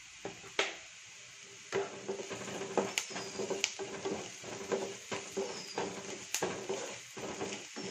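Wooden spatula stirring and scraping sliced onions and green chillies in a nonstick frying pan as they sauté toward brown, with a light sizzle. It starts up about two seconds in, with several sharp knocks of the spatula against the pan.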